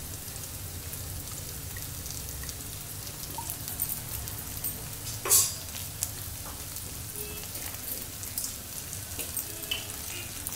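Fried chicken strips, capsicum and onion sizzling in oil in a pan, a steady light frying crackle over a low hum, with one sharp click about five seconds in.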